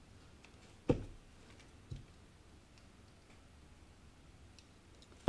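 Small plastic paint jars and cups knocking against the table as acrylic paint is poured. There is one sharp knock about a second in, a softer one a second later, another sharp knock at the very end, and faint light ticks between them.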